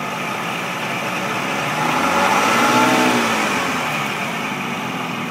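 1980 80 hp Mariner outboard motor running in neutral, revved up once about two seconds in and back down to idle. Under no load it runs fairly cleanly, with hardly any of the misfire it shows under load.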